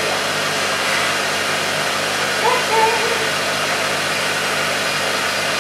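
Steady rush of air from a cold-air skin cooler blowing through its hose onto the arm during laser tattoo removal, with a steady low hum underneath.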